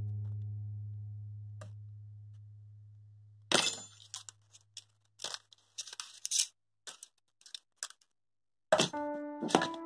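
A low held music note fading away, then a clatter as metal tweezers are set down on the cardboard work mat, followed by a few short clicks and scrapes from handling a plastic DC cooling fan. Background music with several held notes comes back near the end.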